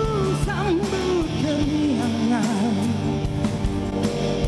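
Rock ballad duet playing: a sung vocal line with quick runs and vibrato-laden held notes over electric guitar and band.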